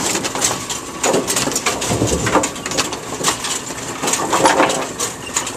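Brunswick pinsetter running, with bowling pins clattering as they tumble into and ride in the turning pinwheel: a fast, uneven run of knocks.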